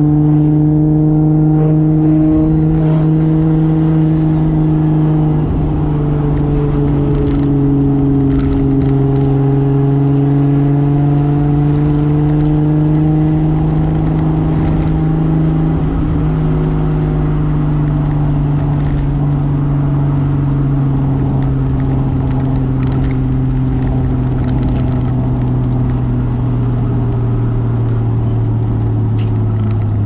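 Single-turbo Toyota 2JZ straight-six in a 1995 Soarer, heard from inside the car, running at steady cruising revs that drift slightly up and down and ease off near the end. A steady hiss runs underneath, with scattered faint ticks.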